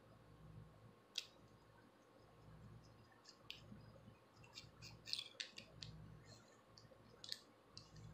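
Scattered sharp clicks and scratches from a plastic rat-tail comb and long acrylic nails working over a scalp, scratching dandruff flakes loose. One click about a second in, a quick cluster in the middle, and another near the end.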